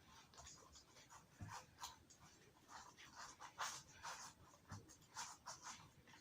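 Faint, irregular scratchy and squishy rustles of a toothpaste-and-oil slime mixture being worked, several small strokes a second.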